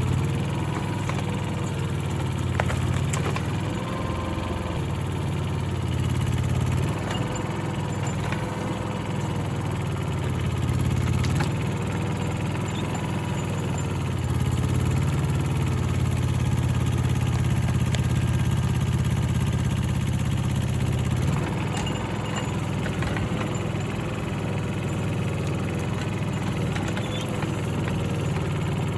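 Mini excavator's diesel engine running steadily, its note swelling and easing a little as it works, with a few faint knocks.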